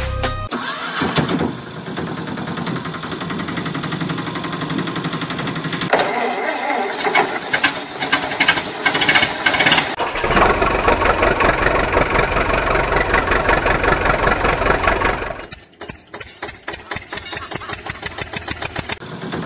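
Heavy-vehicle engine sound effects: an engine starting and running, switching abruptly between different engine recordings several times. Near the end it becomes a rapid, even knocking of about five beats a second.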